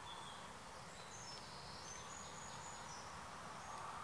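Quiet countryside ambience: a steady faint hiss with scattered short, high-pitched chirps and whistled notes.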